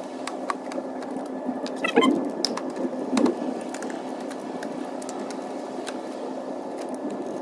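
Hand screwdriver turning screws out of a plastic grille frame, giving scattered small clicks and two louder short scrapes about two and three seconds in, over a steady hum.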